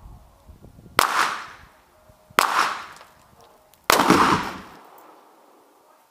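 Three shots from a Taurus CTT40 .40 S&W carbine, about a second and a half apart. The third hits the pyrotechnic target, which goes off with a longer, deeper bang and a cloud of smoke.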